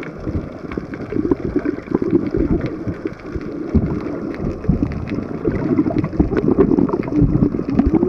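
Muffled underwater noise: water rushing and bubbling against the camera, swelling and falling unevenly, with scattered faint clicks.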